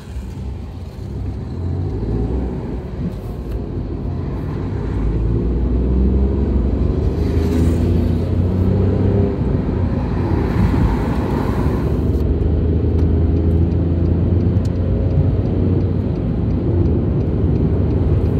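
Nissan Micra K13's 1.2-litre three-cylinder petrol engine accelerating hard onto a motorway, heard from inside the cabin. The engine note climbs and grows louder over the first six seconds, then holds at speed under steady road and wind rumble.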